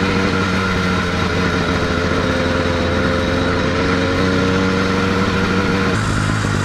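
Small engine of a motorized bicycle running steadily under way, holding a nearly constant pitch at cruising speed. The sound changes abruptly near the end.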